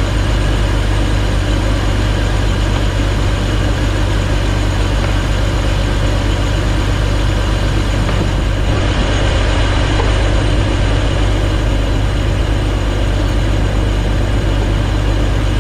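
BMW 330Ci's 3.0-litre straight-six idling steadily with the hood open. The freshly fitted water pump is circulating coolant while air bleeds out of the cooling system.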